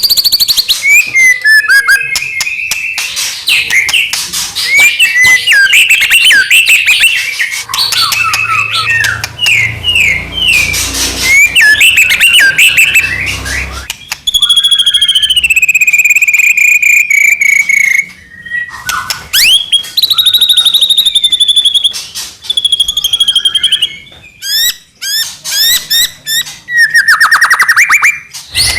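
White-rumped shama (murai batu) singing a loud, full, varied song. It runs through quick chattering and trilled phrases and sweeping whistles, with a long, slowly falling whistle about halfway through.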